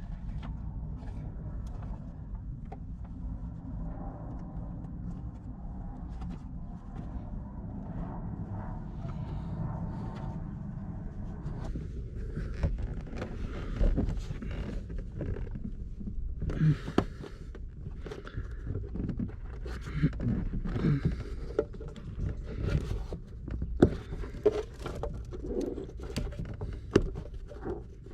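Handling noise of hand work on car parts: scattered clicks, taps and light knocks, thickening from about halfway through, over a steady low hum.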